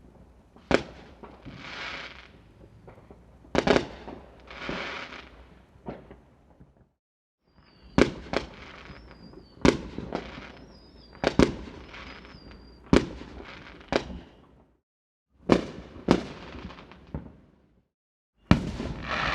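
Fireworks going off: sharp bangs, several of them trailing into a crackling fizz. The audio cuts to silence a few times between separate recordings, and in the middle stretch a thin wavering whistle sounds over the bangs.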